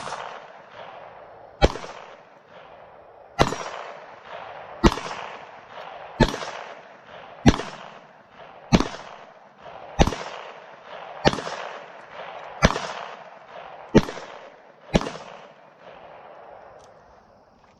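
Taurus TX22 .22 LR pistol fired slowly, twelve shots about one every second and a quarter, each crack followed by a short ringing decay.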